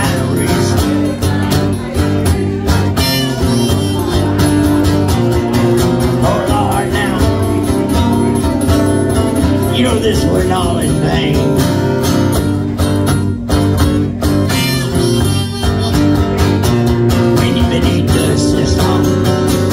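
Live instrumental break on acoustic guitars strumming steadily, with a harmonica in a neck rack carrying a wavering melody over them.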